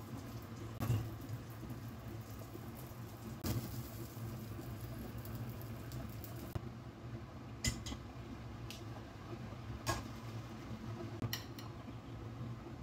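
Metal kitchen tongs clicking and tapping against ceramic plates as food is set on them, a handful of short sharp clicks spaced a second or two apart, over a steady low hum.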